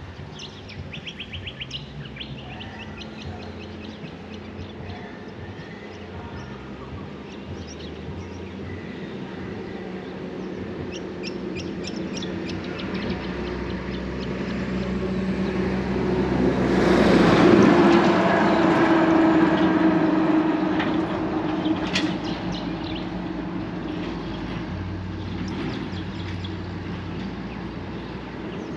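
Birds chirping over the hum of a vehicle that draws near, is loudest a little past halfway, and then fades away.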